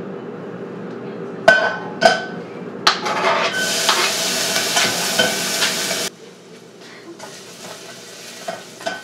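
Two sharp metallic taps ring on a stainless steel pot. Then chopped garlic hits hot olive oil and sizzles loudly for about two and a half seconds. The sizzle drops suddenly to a softer frying hiss, with a spoon stirring and scraping in the pot.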